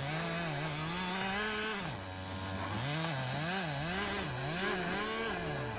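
Petrol chainsaw cutting into the trunk of a standing tree, its engine pitch rising and falling over and over as it works in the cut, with a steadier, lower-pitched stretch about two seconds in.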